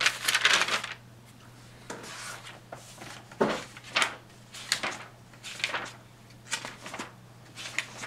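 Hand and felt-tip marker rubbing on paper: a longer scrape in the first second, then scattered short rubs and taps, over a faint steady hum.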